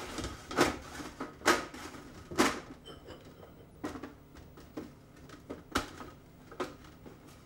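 Parsnip batons being tossed and moved by hand in a metal roasting tray: irregular knocks and scrapes, about one a second, the loudest in the first half.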